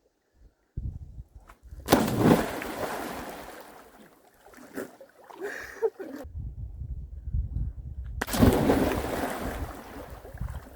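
Water splashing and sloshing, with two sudden loud splashes about six seconds apart that each die away over a couple of seconds.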